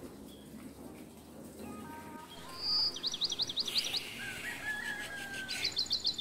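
A songbird singing: a short high whistle, then a quick run of repeated down-slurred notes, and a second rapid trill of repeated high notes near the end.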